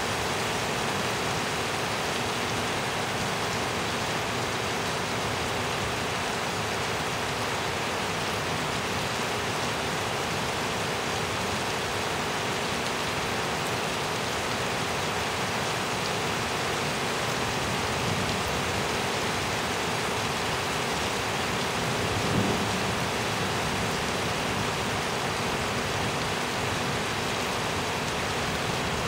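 Steady rain falling during a thunderstorm, with a brief low rumble of thunder about three-quarters of the way through.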